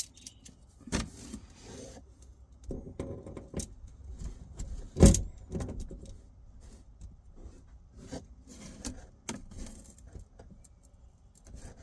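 Metal clicks and clinks of vice grips being handled and set on the threaded pressure-valve fitting, with rustling and a louder knock about five seconds in.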